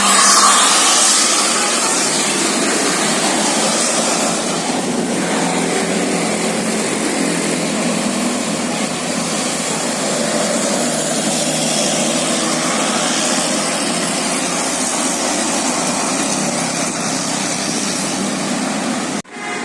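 Steady, loud engine and road noise of a tour bus driving by, with no horn sounding. It breaks off abruptly near the end.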